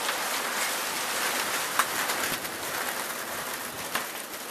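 Hail falling thickly, a dense steady hiss of hailstones hitting the ground, with a few sharper clicks of single stones striking, one about two seconds in and another near the end.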